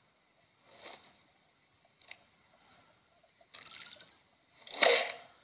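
A few short, separate sound effects from a film soundtrack played on a TV: soft noises about a second and two seconds in, a brief high chirp in the middle, and the loudest, a short sharp burst about a second before the end.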